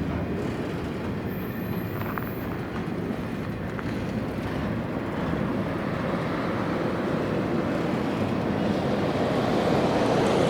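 Freight train rolling by: a steady rumble of wheels on rail that grows louder toward the end, with a faint click or two and a brief high squeal early on.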